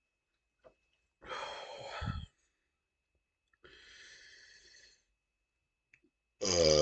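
A person breathing heavily twice, the first breath louder than the second, after chugging Pepsi; near the end a loud, low-pitched belch begins.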